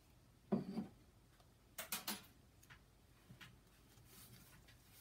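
Small objects handled on a workbench: a dull thump about half a second in, then a sharper clatter of clicks around two seconds in, and a brief faint hiss near the end.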